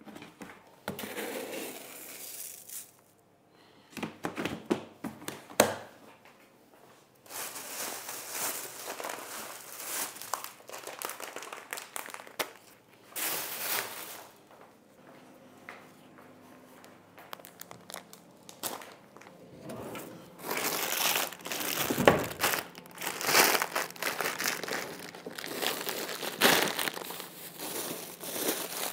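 Crinkly packaging material being handled and crumpled, in irregular bouts of rustling with a few sharp crackles. There is a lull near the start and a quieter stretch midway, and the handling grows busier and louder in the last third.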